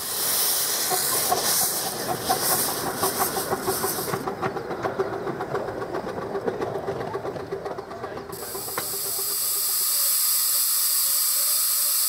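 Miniature steam locomotive pulling away, its exhaust beating in quick chuffs over hissing cylinder drain cocks, fading as it goes. About two-thirds of the way through, a steady, louder hiss of steam takes over, escaping from a standing miniature steam locomotive.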